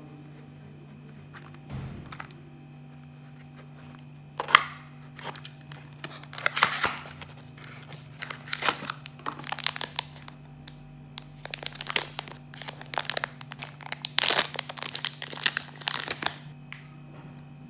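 Packaging of a disposable vape being unwrapped by hand: the cardboard box is opened, and the device's plastic pouch is crinkled and torn open. The rustles and rips start about four seconds in, come irregularly, and stop just before the end.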